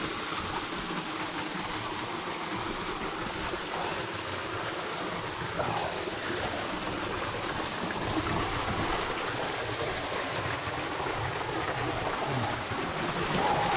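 Mountain river and waterfall rushing steadily.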